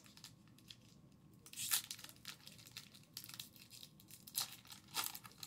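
Plastic wrapper of a hockey card pack being torn open by hand and crinkled, in a series of short rips, the loudest about a third of the way in and others near the end.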